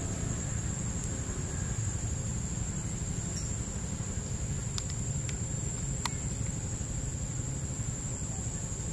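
Outdoor ambience: a steady, high insect drone over a low rumble, with a few faint clicks about halfway through.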